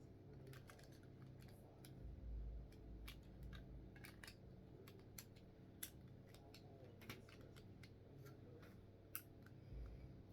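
Faint, irregular clicking of plastic Lego pieces being handled and pressed together, with a few soft low thuds.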